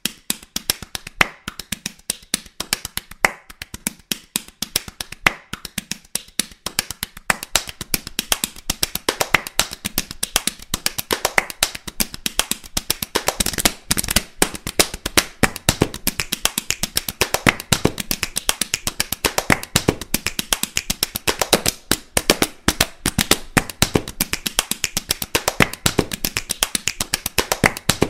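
Hand drumming on a heavy man's belly and body: a fast, unbroken run of sharp slaps and smacks, growing denser and louder after about eight seconds.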